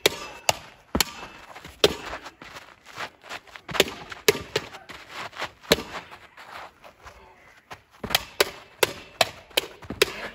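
A practice sword striking a tire-padded training post again and again: about twenty sharp cracks at an uneven pace, coming faster in a run near the end.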